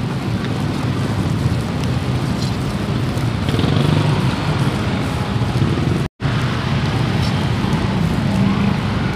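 Woven bamboo hand fan waved over a charcoal satay grill: a steady rush of fanned air buffeting close to the microphone, with faint crackling from the grill. The sound cuts out briefly about six seconds in.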